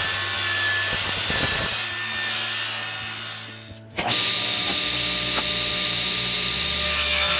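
DeWalt circular saw cutting through half-inch pine plywood, a steady hiss that fades out after about three and a half seconds. From about four seconds in, a table saw motor runs with a steady hum.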